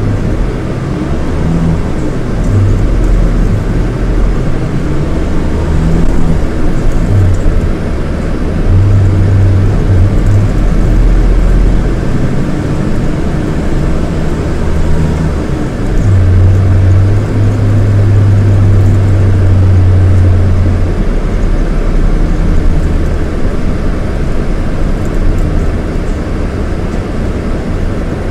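Scania K230IB coach's 230 hp Scania DC9 diesel engine running on the move: a low drone that grows louder and eases off again several times, with a steady rumble of road noise.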